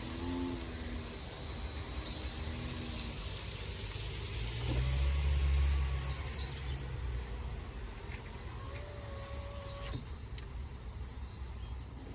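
Power window motor on a rear door of a 2005 Cadillac Escalade ESV driving the glass, with a faint whine that starts and stops a few times and a louder low hum in the middle. This is the newly fitted window motor and regulator being tested.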